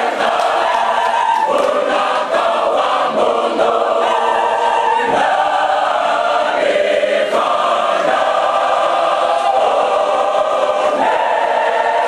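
Large Fijian church choir singing a hymn in full voice, many voices in harmony, held steady at full strength.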